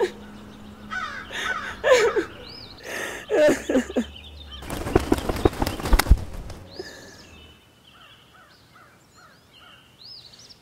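Crow cawing several times with harsh calls, followed by a short noisy burst with a few sharp clicks about five seconds in; faint high chirps of small birds later on.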